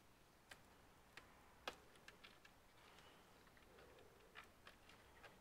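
Near silence broken by a handful of faint, irregular clicks and taps from small computer parts and tools being handled during disassembly.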